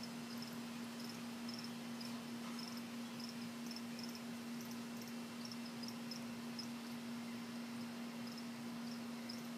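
Crickets chirping in short, high, irregular chirps, a few a second, over a steady low hum.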